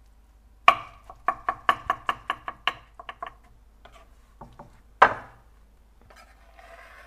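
Chef's knife chopping soft baked eggplant on a wooden cutting board: a quick run of about a dozen knocks, around five a second. A single louder knock follows about five seconds in, then a faint scraping as the chopped eggplant is slid off the board into the pan.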